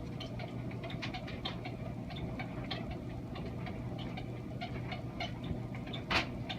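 Washing machine running, its drum turning with a steady hum and a constant low tone, overlaid by many light clicks and taps. A sharper knock comes near the end.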